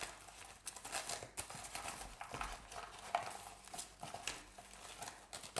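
Paper stickers rustling and sliding as a hand rummages through a cardboard box lid full of them, with irregular light taps and scrapes.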